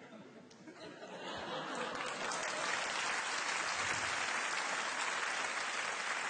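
Studio audience applauding, with some laughter, swelling in about a second in and then holding steady.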